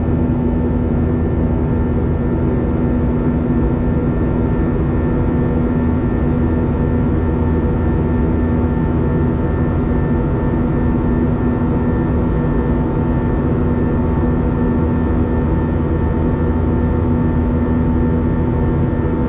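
Airliner cabin noise: a steady, loud rumble of engines and rushing air with a constant drone, unchanging throughout.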